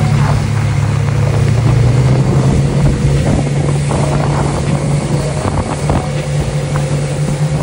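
Outboard motor on a small aluminium boat running steadily at speed, a low even drone under the rush of water along the hull and wind on the microphone.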